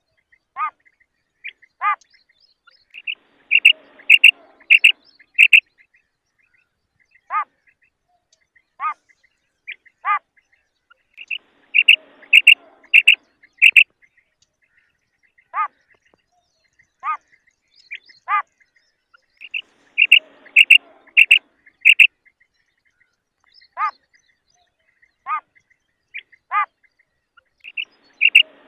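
Female common quail calling: short single notes about every one and a half seconds, and a quick run of five or six louder, higher notes about every eight seconds, the same sequence repeating.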